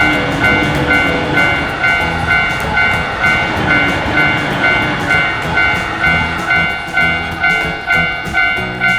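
Japanese railroad crossing alarm ringing its two-tone "kan-kan" in even pulses about twice a second, with a train rumbling through the crossing underneath.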